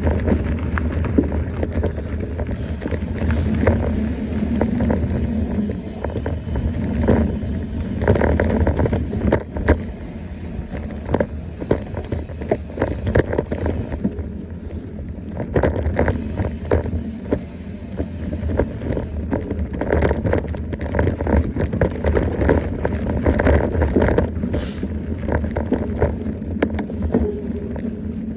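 Mountain bike riding over a rough trail: tyre noise with constant rattles and knocks from the bike over bumps, and wind rumbling on the microphone.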